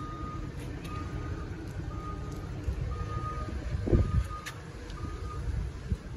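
A vehicle's reversing alarm beeping steadily about once a second over a low engine rumble, with one loud thump about four seconds in.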